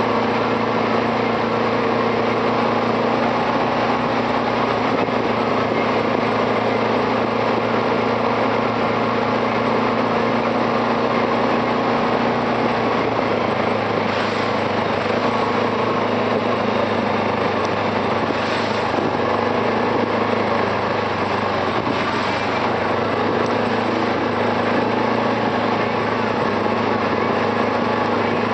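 Arctic Cat 700 TRV ATV's single-cylinder engine running steadily under way on a dirt trail, heard from the rider's seat. Its pitch shifts slightly about halfway through.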